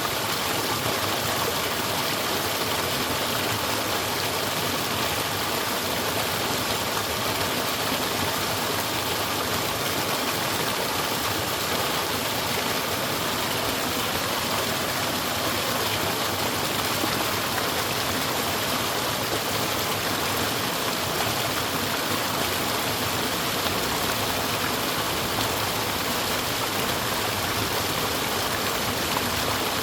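Mountain stream water flowing over rocks: a steady, even rush.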